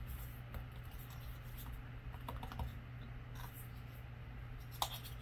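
Hands handling a new iPhone 15 Pro Max: soft taps, small clicks and rustling as the paper cover is peeled off the screen, with one sharper click near the end. A low, steady hum runs underneath.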